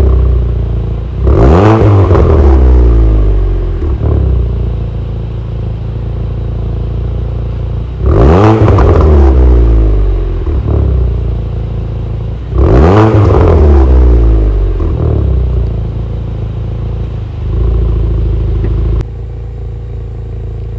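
Proton Suprima S's turbocharged 1.6-litre CFE four-cylinder engine revved from idle through its twin-tip exhaust. There are three sharp throttle blips several seconds apart, each climbing fast and sinking back slowly to idle, then a lighter one later.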